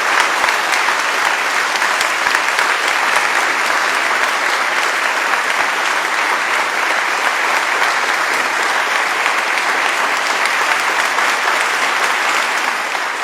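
A large audience applauding steadily, dense clapping that carries on without a break and fades out right at the end.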